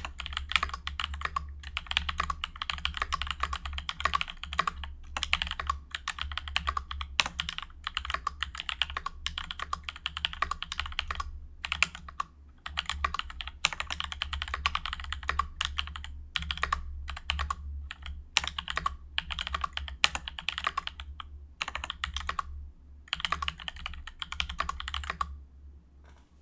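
Fast typing on a Discipline65 mechanical keyboard with lubed NovelKeys Blueberry tactile switches (Krytox 205g0), a POM plate, a high-profile acrylic and POM case and PBT keycaps, with no deskmat under the board. A steady stream of keystroke clicks with a few short pauses, stopping just before the end.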